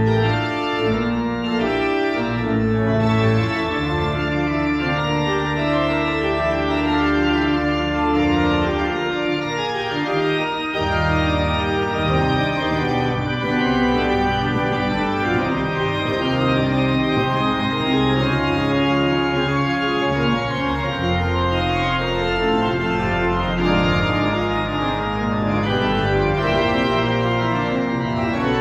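Pipe organ playing a continuous piece: several voices moving over long held low bass notes.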